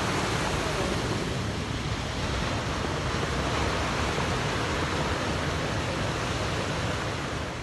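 Ocean surf breaking and washing up a beach, a steady rushing noise.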